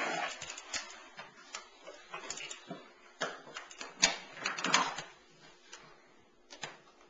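Irregular knocks and clatters of a plastic push-walker toy rolling and bumping on a wooden floor, with a busier cluster of knocks about three to five seconds in.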